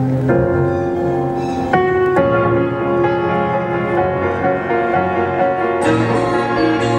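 Slow instrumental music with sustained chords and no singing; a new chord comes in about two seconds in, and the music turns fuller and brighter near the end.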